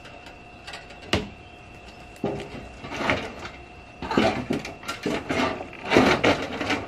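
A sharp knock about a second in, then irregular bouts of clattering and scraping as objects are handled.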